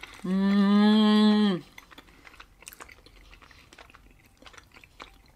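A person hums one long, level 'mmm' of enjoyment with closed lips while eating soft mochi, lasting about a second and a half, followed by faint chewing and mouth sounds.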